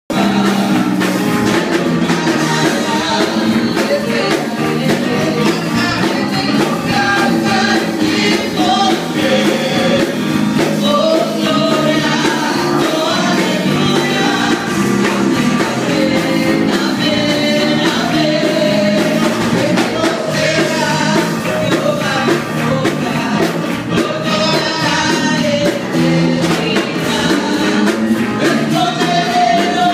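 Live gospel worship music: a man and a woman singing through microphones over a band with electric bass guitar, loud and continuous.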